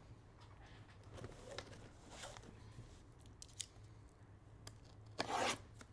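Trading-card box packaging being torn open and handled: light scattered crinkles and clicks, with a longer tearing rip about five seconds in.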